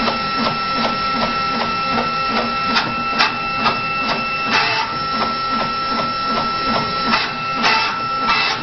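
A small CNC router engraving a PCB plate: a steady high whine runs under quick, regular ticking at about four a second, with a few short rasping bursts mid-way and near the end.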